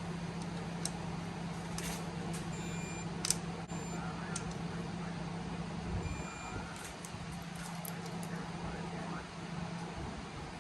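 A torque wrench clicking now and then as the camshaft assembly bolts of a Ford 4.0 litre single-cam engine are pulled down to 15 newton metres, over a steady low hum that stops near the end.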